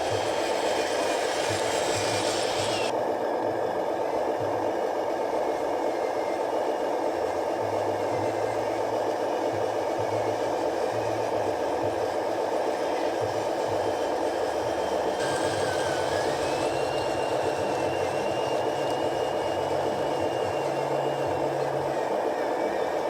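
Small electric motors and gearing of remote-control model construction trucks running steadily, a whirring hum with a faint high whine.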